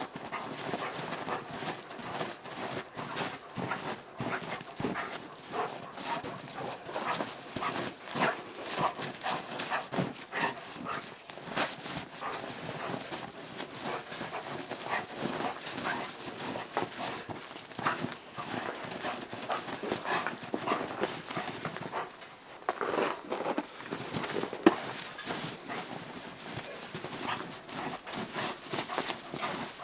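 Giant Schnauzer tearing into snow: a dense, uneven run of quick crunches and scrapes, mixed with the dog's panting. One sharper snap comes about three-quarters of the way through.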